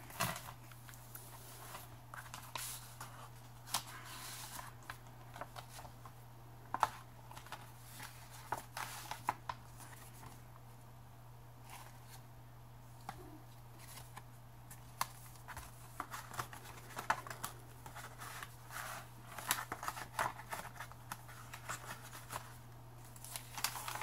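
Paper pages and card tags of a handmade junk journal being handled and turned: scattered soft rustles, crinkles and light taps, over a faint steady low hum.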